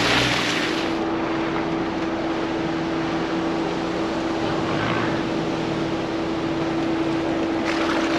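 Ford Bronco driving on an off-road trail: a steady engine drone with a constant hum and a rush of tyre and wind noise, louder at first and easing off about a second in.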